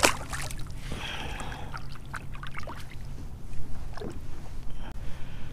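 A splash at the side of a kayak as a red drum is let go into the water, then water sloshing and trickling and a few light knocks on the plastic hull.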